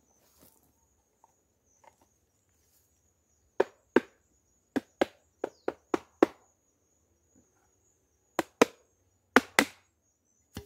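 Sharp knocks on a wooden beehive box as its press-fit lid is tapped down into place: about a dozen knocks, mostly in quick pairs, starting a few seconds in.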